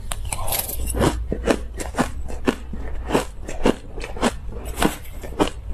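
Mouthfuls of crushed ice being bitten and chewed: a quick run of sharp, crisp crunches, about two a second.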